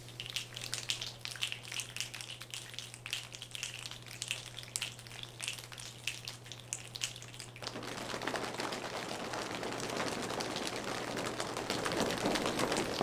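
Audience clapping: scattered claps at first, then full applause from about eight seconds in that grows louder toward the end. A steady low hum runs underneath.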